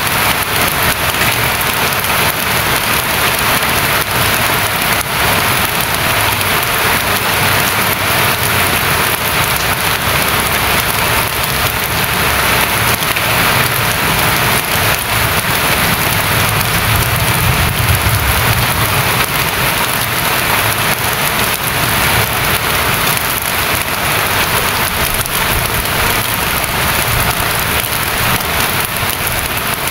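Steady rain pouring down: a loud, even hiss of countless drops hitting surfaces.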